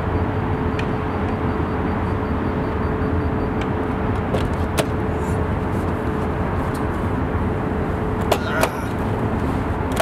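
A vehicle engine running steadily, with a constant hum and tone. There are a few sharp clicks, one about five seconds in and two close together near the end.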